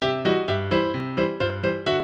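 Background music: a piano-like keyboard playing a quick, even run of notes, about four a second.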